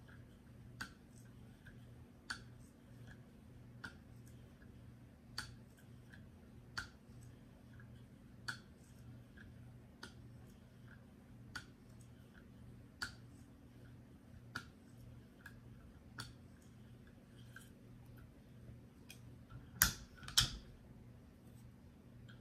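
Guided KME sharpener working a 3-micron (6,000 grit) stone along a paring knife's edge: light strokes with a click about every second and a half and fainter ticks between. Two louder clacks come near the end.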